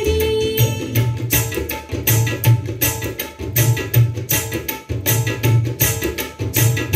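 Instrumental stretch of a Hindi song: a busy hand-drum rhythm of repeated sharp strokes over low thumps, with no singing.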